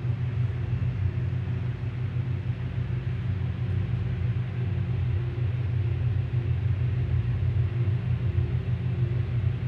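Ice cube machine running in its freezing stage: a steady low hum from its refrigeration system as refrigerant chills the evaporator fins to form the cubes. No sign of the strange noise it was being checked for.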